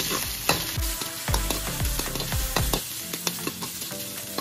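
Pork belly pieces sizzling as they fry in a little oil in a metal wok, with a metal spoon clinking and scraping against the pan as they are stirred.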